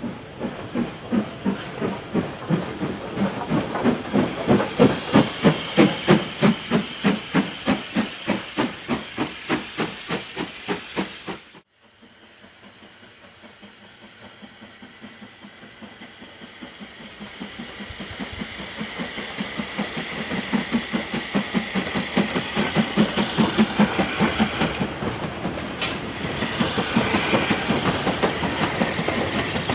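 Southern Railway Q class steam locomotive 30541 passing with a goods train, its exhaust beats coming in a fast, even rhythm of sharp chuffs with steam hiss. Just under halfway through the sound cuts off abruptly. Then the chuffs build up again as the engine approaches.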